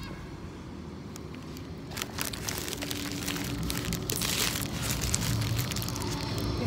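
Tram approaching along the street, its low rumble growing steadily louder, with rustling and clicks from the phone being handled.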